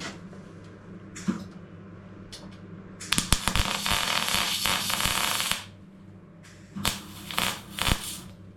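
Welder stitch-welding the steel sill panel: a crackling weld run of about two and a half seconds starting a few seconds in, then three short tack bursts near the end. A steady low hum sits underneath.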